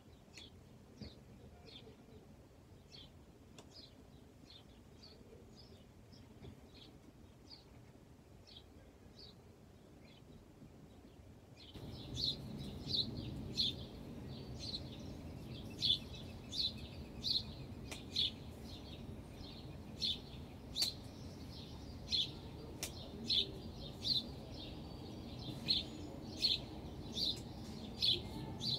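A bird chirping over and over, one short high note about once or twice a second. About twelve seconds in the chirps get louder and a steady low background rumble rises with them.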